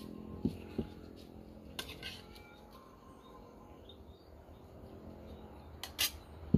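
Metal serving spoon clinking and scraping against a metal cooking pot and plates as food is dished out: a few light, scattered clinks, with a quick pair and a sharper clink near the end.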